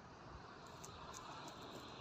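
Faint steady rushing noise, with a few light ticks starting partway through.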